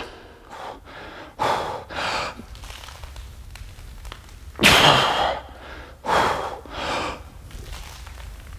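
A weightlifter breathing hard under a barbell mid-set of heavy back squats: several forceful breaths in and out, the loudest about five seconds in.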